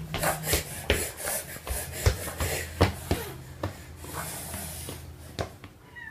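Irregular soft taps and rubbing noises, several a second, over a low steady hum that fades out near the end.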